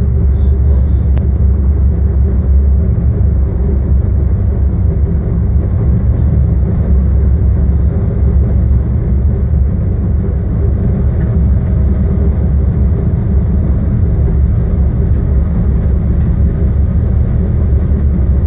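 Steady low rumble of a DB Class 185 (Bombardier TRAXX) electric locomotive running through a tunnel, heard from inside the cab: wheels on rail and running gear, with a faint steady hum underneath.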